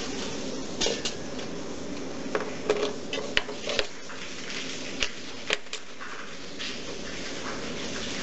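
Metal clinks and knocks of a sinker mould and pliers being handled on a stone floor: about a dozen sharp taps, some ringing briefly, clustered in the first six seconds, over a steady background noise.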